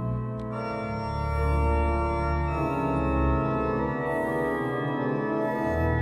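Church organ played from a three-manual console: slow, sustained chords over deep held bass notes, the harmony shifting every second or two.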